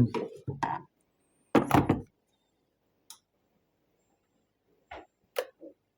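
Handling knocks and switch clicks from an electric kettle being set up and switched on: a dull knock about a second and a half in, then a couple of sharp clicks near the end.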